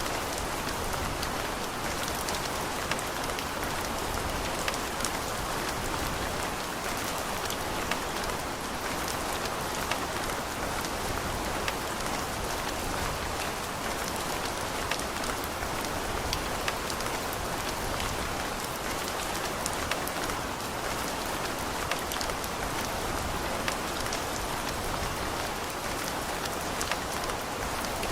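Steady rain falling, a continuous hiss with scattered individual drops ticking on a hard surface.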